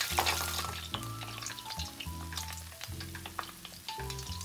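Hot deep-frying oil sizzling and crackling around a fried fish head, the dense hiss thinning within the first second to scattered pops. Background music of slow held notes plays throughout.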